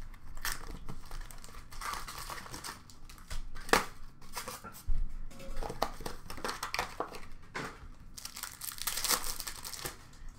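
Trading-card packs being opened by hand: wrappers crinkling and tearing, with irregular rustles and a few sharp clicks of card stock.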